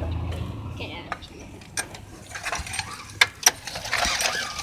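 Scattered sharp clicks and knocks from hands working around a go-kart's small Tecumseh engine, which is not running.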